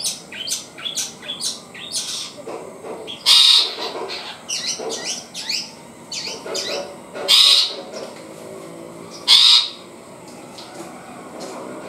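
Juvenile long-tailed shrike (cendet) practising its first song: a quick run of short chirps, broken by three loud, harsh squawks spaced a few seconds apart, then softer twittering near the end.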